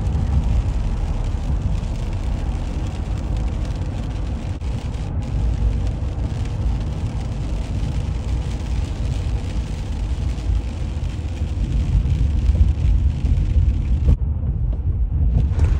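Car driving on a wet road, heard from inside the cabin: a steady low rumble of tyres and engine with an even hiss of spray. The hiss drops out for a moment near the end.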